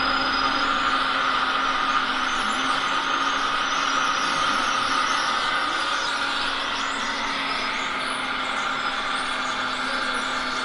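Steady high whine over a low hum from a radio-controlled scale Liebherr 946 hydraulic excavator working its arm and bucket, easing slightly partway through.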